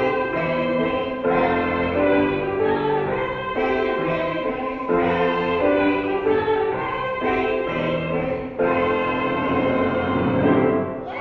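Children's choir singing a cantata song in phrases of held notes, fading out near the end.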